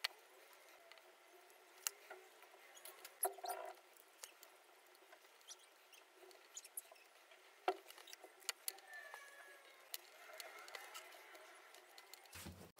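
Faint scattered clicks and taps of wooden ice-cream sticks being handled and pressed together on a tabletop, with a hot glue gun at the start and little squeaky rubbing sounds now and then as the glued sticks are worked.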